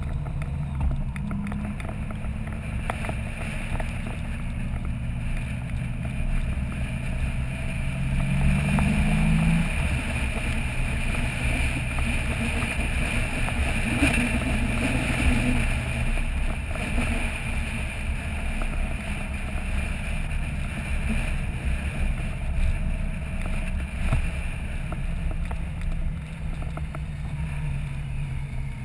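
Touring motorcycle's engine running at road speed, heard from a pole camera mounted on the bike, with steady wind and road noise. The engine note climbs slowly over the first nine seconds or so, then drops, and rises again near the end.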